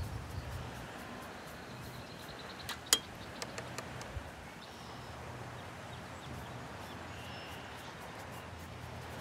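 Quiet open-air ambience with a soft low rumble of wind and a few faint, high bird chirps. About three seconds in there is one sharp click, followed by a few softer taps over the next second, from the painter handling his brush and palette.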